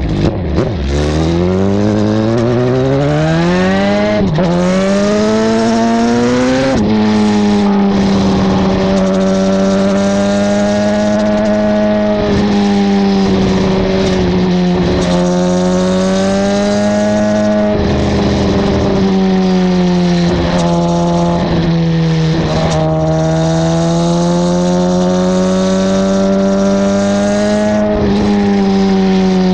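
2009 Suzuki GSX-R1000 inline-four running through a Two Brothers M2 exhaust, heard right at the muffler. It pulls hard through the gears with three quick upshifts in the first seven seconds, then cruises at a steady pitch with small throttle changes.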